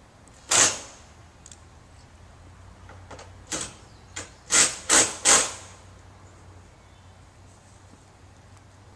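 Roofing work on a metal roof: scattered sharp knocks and clanks, loudest about half a second in and in a quick run of three about halfway through, over a low steady hum.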